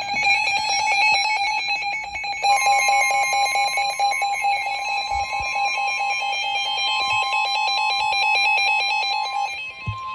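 Emergency Alert System attention signal: a loud, steady alarm tone, joined by a second, slightly higher tone about two and a half seconds in. The lower tone drops out near the end, leaving the higher tone sounding alone. It heralds a spoken severe thunderstorm warning.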